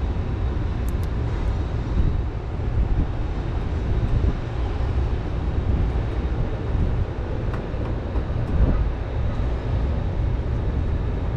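Steady low rumble with an even hiss over it and no distinct events.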